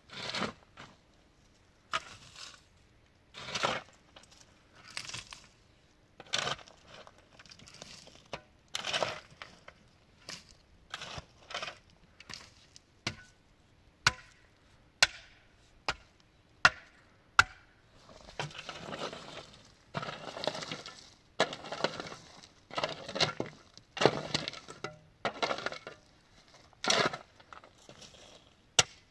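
Wood being chopped and broken: irregular sharp knocks and cracks, one every second or two, with a stretch of crunching and rustling in the latter part.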